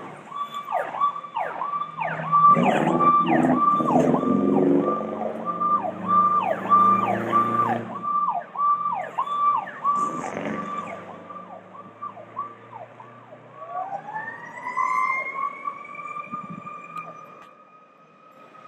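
Fire truck siren cycling fast, a high tone that drops sharply in pitch about twice a second, with the truck's engine running low underneath as it pulls out. Later a siren winds up into a rising wail and holds its pitch.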